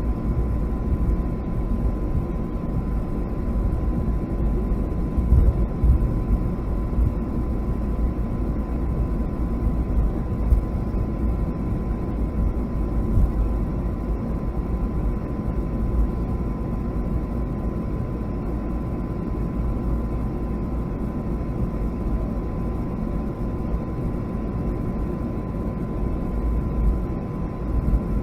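Steady low rumble of a Boeing 757-200's engines and airflow heard inside the passenger cabin, with a thin steady tone running through it.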